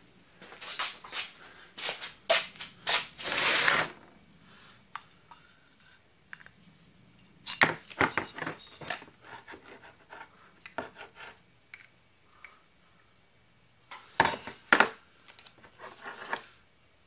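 Plastic parts bags and packaging rustling and crinkling for the first few seconds, then clinks and knocks of metal chainsaw engine parts, a replacement cylinder among them, being handled and set down on a wooden workbench, twice in short clusters.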